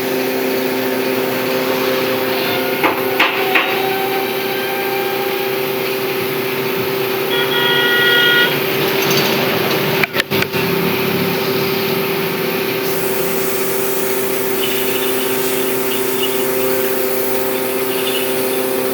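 A steady machine hum in a woodworking shop, with a few sharp knocks about three seconds in and a brief high-pitched tone near the middle.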